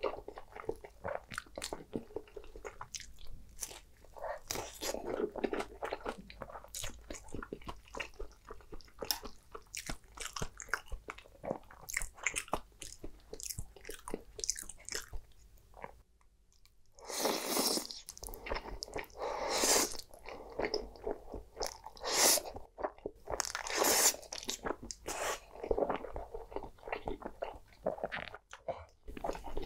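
Close-miked chewing of creamy shrimp pasta: a continuous run of wet, clicky mouth noises, growing louder in the second half.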